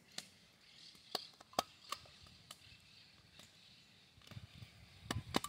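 Handheld stapler snapping shut again and again, driving staples through the folded top of a milk carton to seal it. About eight sharp clicks come at uneven intervals, the loudest about a second and a half in.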